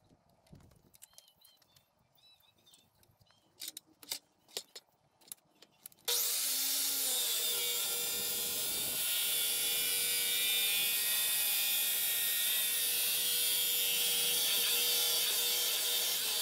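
A few clicks and knocks as the pipe is set in the saw, then about six seconds in an electric compound miter saw starts abruptly and runs steadily under load, cutting through 3-inch stainless steel exhaust pipe with a steady pitched whine.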